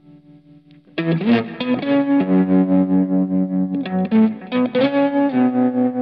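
Background music: a sustained chord fades out, and about a second in an effects-laden guitar comes in suddenly and loud, playing held notes with pitch bends.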